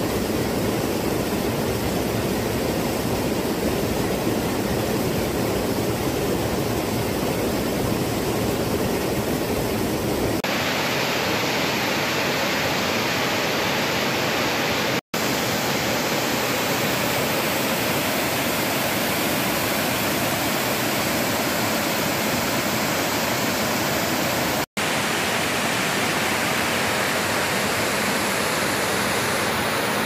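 Waterfall rushing: a steady, loud rush of falling water. About ten seconds in it turns brighter and thinner, and it breaks off for an instant twice.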